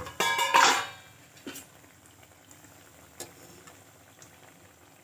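Gulgulas deep-frying in ghee in a kadai: a low steady sizzle with a few faint pops. Just after the start, a brief ringing clatter of metal on the kadai is the loudest sound.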